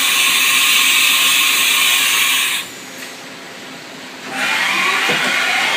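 Axis drives of a 1991 Haas VF-1 vertical machining center traversing as the machine homes its X, Y and Z axes: a loud steady whir that stops abruptly after about two and a half seconds and starts again about four seconds in.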